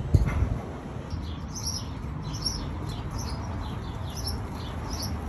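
Small birds chirping in the background: short, high, falling chirps repeating about three times a second. There is a low thump just after the start.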